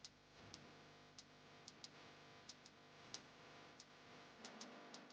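Near silence broken by faint, irregular sharp clicks, about two a second, over a faint steady background of tones.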